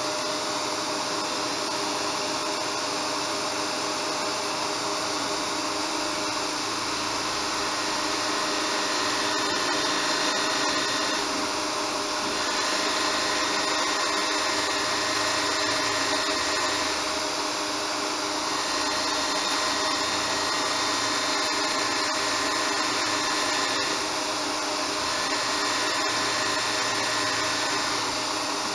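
Small motor-driven wood lathe running steadily while a hand-held turning tool cuts into a spinning wooden blank. The cutting noise swells a few times as the tool is worked along the piece.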